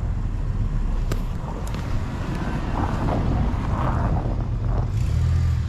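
Off-road vehicle engine running low under a steady rumble of wind on the microphone, with a couple of sharp clicks about a second in.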